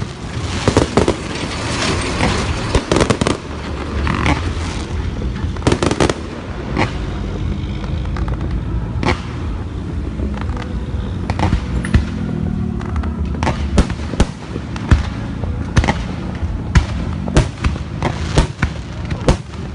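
Assorted fireworks going off: many sharp bangs and pops over a continuous rumble and crackle, densest in the first few seconds, then spaced out irregularly.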